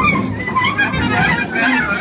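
Live free-jazz improvisation: clarinet and trumpet playing fast, twisting runs over bowed double bass and drums.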